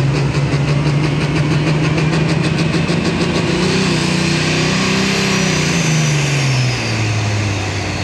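Turbocharged diesel engine of a John Deere pulling tractor running hard at high revs as it hooks into the sled and starts its pull. About four seconds in, its pitch begins to fall as the engine takes the load, with a faint high whine over it.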